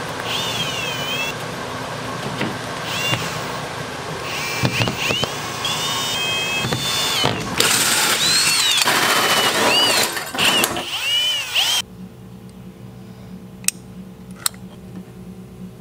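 Cordless drill driving a hole saw through OSB wall sheathing: a dense, loud cutting noise with some high squealing glides. About twelve seconds in it gives way to a quieter steady hum with two sharp clicks.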